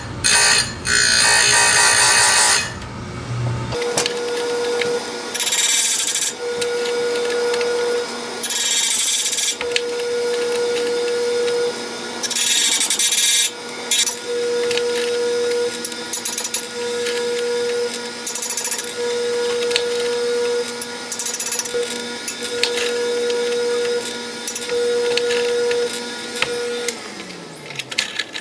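An electric chainsaw-chain grinder running while its wheel grinds chain teeth in short scraping bursts, with a steady motor tone between them. The first few seconds are louder and harsher, and the sound changes abruptly about four seconds in. Near the end the motor is switched off and winds down.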